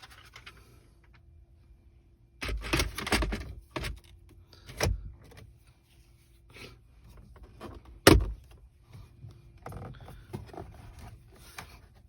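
Plastic car interior trim pieces being handled, giving irregular clicks and knocks: a quick cluster about two and a half seconds in, single knocks after it with a sharper one about eight seconds in, and another cluster near the end, over a faint steady hum.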